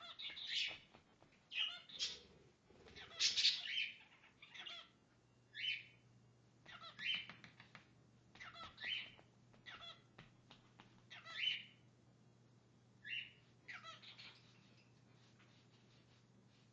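Male cockatiel singing a display song: a string of short chirps and whistled notes, about one every second or so with short gaps between them.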